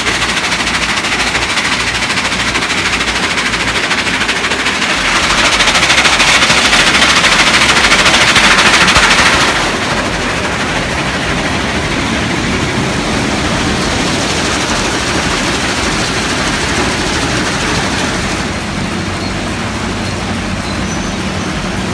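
Industrial rock crusher breaking blasted shot rock down into 1- and 2-inch pieces: a dense, continuous clatter of stone, loudest for a few seconds in the middle.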